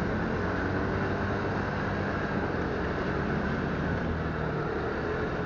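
Motorbike ridden in slow town traffic: its engine running steadily under wind and road noise.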